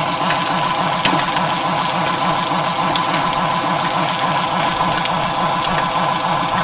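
Engine of a tree-cutting machine running steadily, with a few faint clicks.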